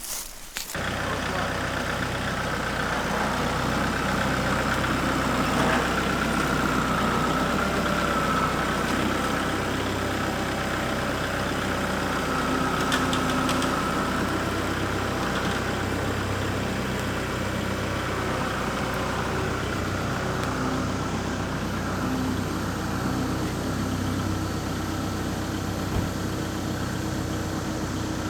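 A motor vehicle's engine running steadily at an even speed. It comes in abruptly just under a second in.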